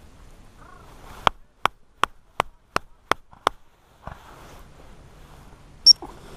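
Seven sharp hand claps, evenly spaced at about three a second, urging a working springer spaniel on through the cover. Near the end comes one short, high pip on a gundog whistle.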